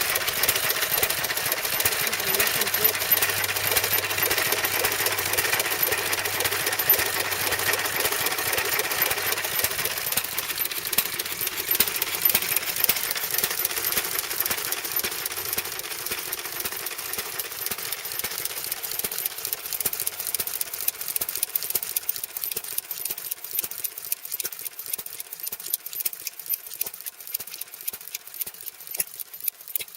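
Amanco stationary engine running steadily with a rapid, even clatter of firing and valve-gear knocks, growing somewhat quieter in the second half.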